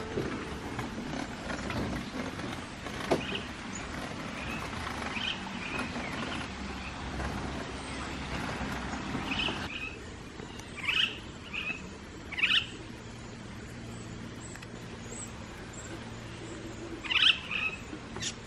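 Superb lyrebird calling: loud, short, sharply falling whistled notes in two clusters, the first in the second half and the second near the end, over a quiet aviary background. Before them are only faint, softer chirps.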